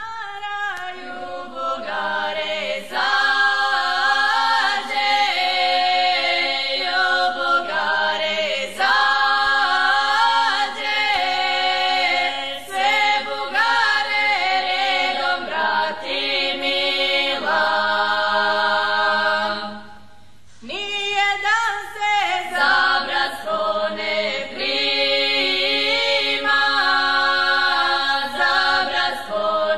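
Women's vocal group singing unaccompanied: a southeastern Serbian song in the newer village style, sung 'na bas', with one singer leading the group. The voices hold long notes, with a short break between phrases about twenty seconds in.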